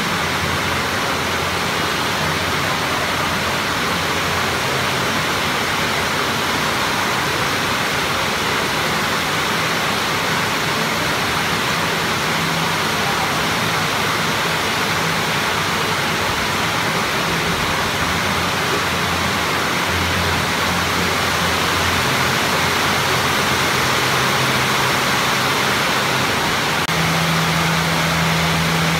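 Steady loud rushing noise with a faint low hum underneath that grows a little stronger near the end.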